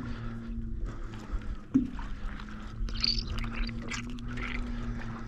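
Steady low hum of a small fishing boat's motor running, with two sharp knocks on the boat a couple of seconds apart.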